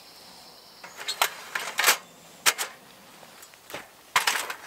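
Wooden sticks knocking and clattering against the thin titanium walls of a folding backpack wood stove as they are stood upright inside it: a few sharp knocks about a second apart, then a quick cluster near the end.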